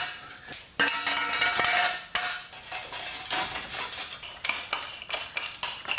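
Steel jack stands clanking and rattling as they are handled and set in place: repeated metallic knocks and clinks, some with a brief ring.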